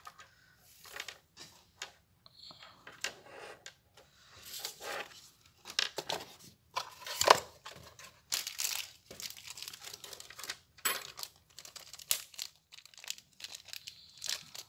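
Thin clear plastic accessory bags crinkling as they are handled and opened, along with the rustle of a microphone cable being handled. The crinkles come in irregular bursts, the loudest about seven seconds in.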